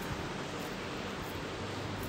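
Steady background hiss with a faint low hum, no distinct sounds standing out.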